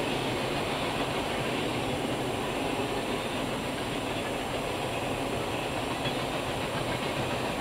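Coal hopper cars of a freight train rolling past at speed: a steady rolling rumble of steel wheels on the rails, heard from inside a car.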